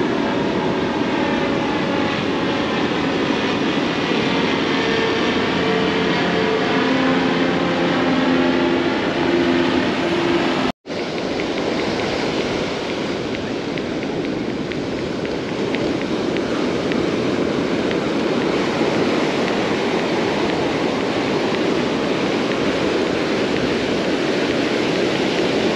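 An aircraft passing low overhead, its engine drone shifting in pitch, over the steady wash of breaking surf. The drone cuts off sharply about eleven seconds in, and then only surf and wind noise remain.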